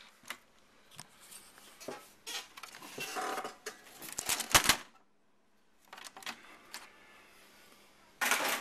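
Plastic case of an Apple IIc computer being handled and opened up: scattered clicks, knocks and rattles, busiest from about three to five seconds in.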